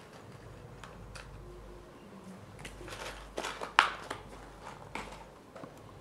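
Small clear plastic tub being handled: scattered light plastic clicks and rustles, with a cluster of sharper clicks a little past three seconds in as the lid is pressed back on.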